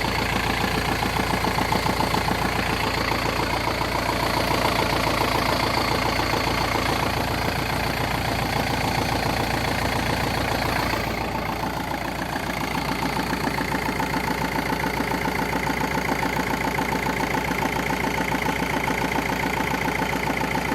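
A 1.9-litre 130 hp diesel engine idling steadily with an odd noise in it that the owner cannot place; he has ruled out the damper pulley and the flywheel.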